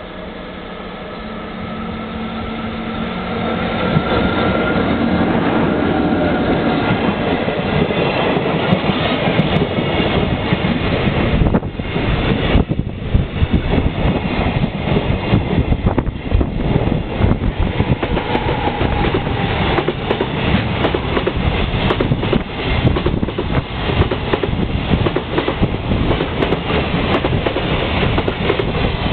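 An electric freight locomotive approaching at close range, growing louder over the first four seconds with a steady whine. Then a long container freight train rolls by, its wheels clattering over the rail joints in a fast, uneven rhythm.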